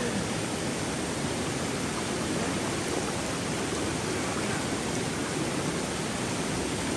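Swift river water rushing steadily over rocks, a fast current.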